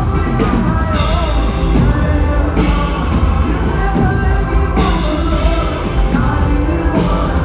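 Live band playing a worship song, with singing over a full band of drums, bass and guitars, and strong hits about every two seconds.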